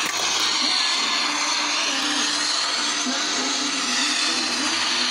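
Steady rushing of air from a small electric blower, with a low motor hum under it.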